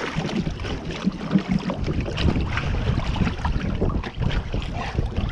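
Wind buffeting the microphone over water splashing and sloshing along the side of an inflatable boat, with scattered small knocks.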